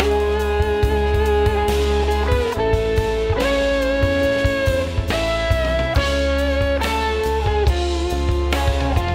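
Full jazz-fusion band mix played back through a Tone Projects Unisum mastering compressor. A sustained electric guitar melody of long held notes with slight bends rides over a steady bass line and a drum kit.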